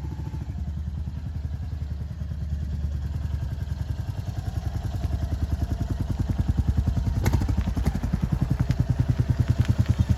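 Royal Enfield Hunter 350's single-cylinder engine running with an even pulse of about eight beats a second, growing louder about halfway through, with a few sharp ticks over it in the second half. The bike has the ticking noise that its owner puts down to the timing chain.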